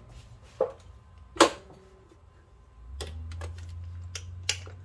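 Sharp metallic clicks and clinks of hand tools, a 10 mm socket on an extension being handled and set onto a bolt. There are a few single clicks early on, then a quicker run of lighter clicks in the second half. A faint steady low hum starts about three seconds in.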